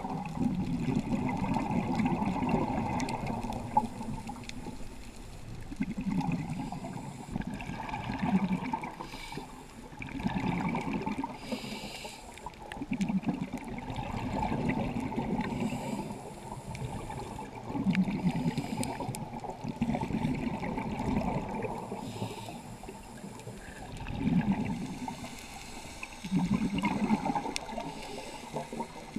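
Scuba diver's regulator heard underwater: exhaled bubbles gurgle in bursts every two to three seconds, with a few short hisses of breath drawn through the regulator between them.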